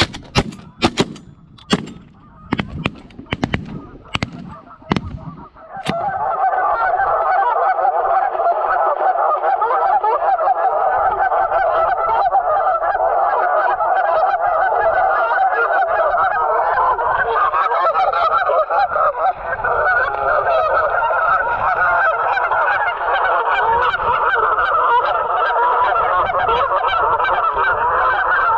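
A rapid volley of shotgun shots, about eight to ten sharp reports in the first six seconds, then a flock of geese honking continuously, many birds calling at once.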